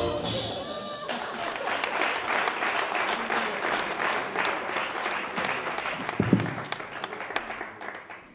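Audience applauding, a dense patter of clapping that dies away near the end. Music cuts off about a second in, and a single loud thump comes about six seconds in.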